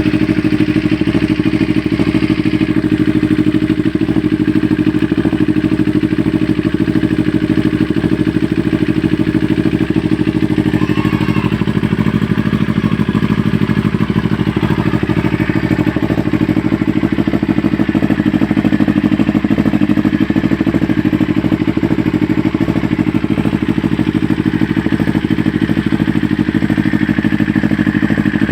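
Motorcycle engine idling steadily through an aftermarket exhaust pipe during an exhaust sound check.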